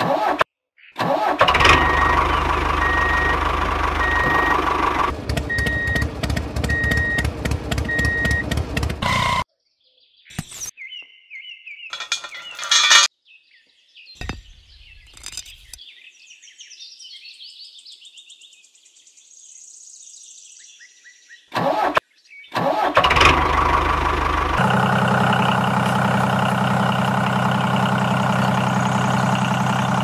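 Walking-tractor (power tiller) engine starting and running steadily, then cutting off suddenly about nine seconds in. After a quieter stretch with scattered knocks, the engine starts again and keeps running steadily.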